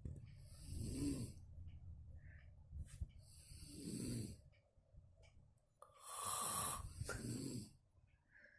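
A woman snoring very loudly in deep sleep, which is put down to exhaustion. There are three long snoring breaths about three seconds apart, and the third is the longest and loudest.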